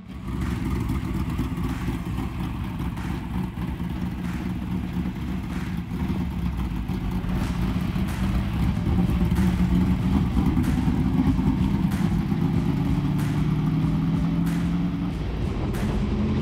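Dirt modified race car's engine running, getting louder partway through, with a few short sharp cracks. Near the end its pitch starts to climb as it revs up.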